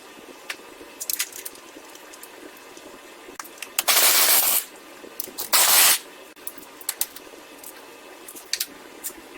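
A pneumatic tool runs in two short hissing bursts, about half a second each, tightening the two mounting bolts of a newly fitted front lower control arm. Light metallic clicks and knocks of tools and parts come before and between them.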